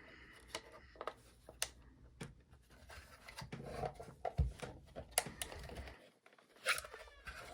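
Faint, scattered plastic clicks and taps from the housing of a Wheelock Exceeder strobe being handled while its mounting bracket is worked at and pried.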